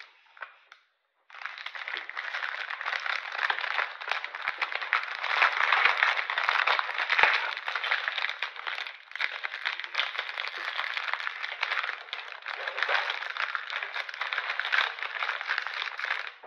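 Shiny plastic wrapper of a large chocolate Easter egg crinkling as a hand grips and turns it: a dense, continuous stream of small crackles. It starts after a short pause about a second in.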